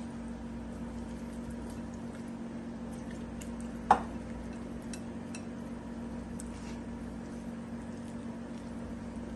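One sharp clink of kitchenware about four seconds in, ringing briefly, with a few faint small clicks before and after, over a steady background hum.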